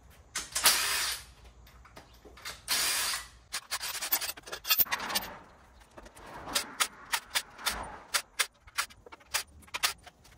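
A power tool runs in two short bursts on the engine's fasteners, then comes a long run of separate sharp clicks and knocks from hand tools working on the engine.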